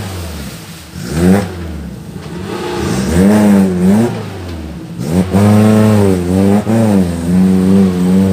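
Suzuki Jimny off-roader's engine revved hard in repeated pushes, its pitch rising and falling as the 4x4 works through deep mud. The strongest, longest revving comes from about five seconds in.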